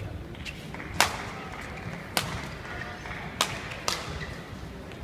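Badminton rally: rackets striking the shuttlecock in turn, a sharp crack about every second, four clear hits in all, the last two close together.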